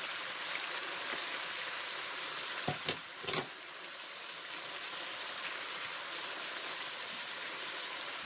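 Battered chicken pieces sizzling steadily in hot oil in a frying pan, nearly done cooking. A few sharp clicks and a short clatter come about three seconds in.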